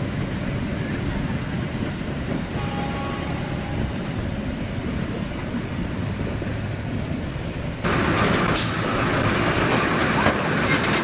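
Train running on rails, a steady low rumble; about eight seconds in it suddenly gets louder and brighter, with many sharp clicks and rattles.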